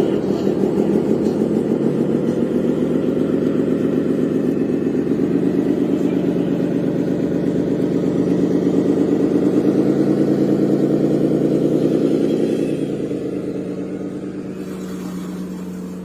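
A vehicle engine running with an even pulsing beat, holding steady for about twelve seconds and then fading away.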